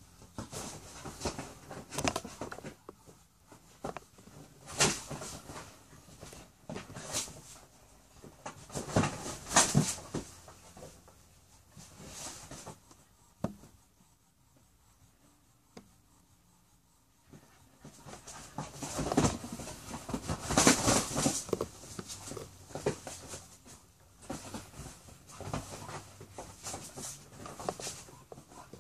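A dog and a rooster scuffling on a leather couch: irregular rustles, scrabbles and soft knocks of paws, claws and feathers against the leather, coming in flurries with a lull of a few seconds midway.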